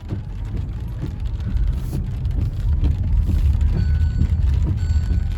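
A loud, deep rumble that swells to its loudest about three to four seconds in, with faint ticks throughout. Near the end a short, high electronic beep starts repeating about once a second.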